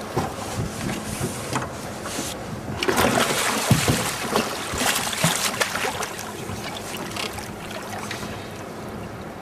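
Water splashing and sloshing at a boat's side, with sharp knocks and clicks, busiest from about three to six seconds in.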